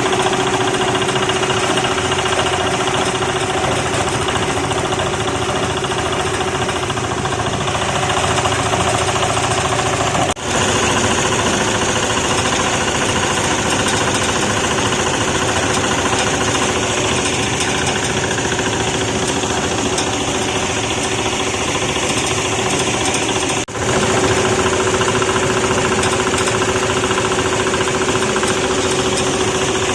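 Market-waste sorting machine separating plastic from vegetable scraps, running steadily with a loud, rattling mechanical drone and a constant hum; the sound drops out for an instant twice.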